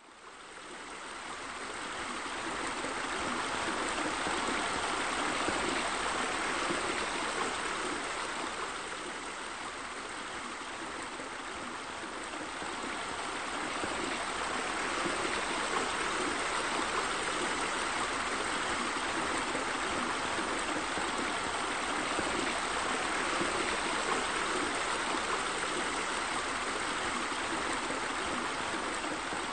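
Steady sound of running water, like a stream or fountain, fading in over the first couple of seconds and then flowing evenly.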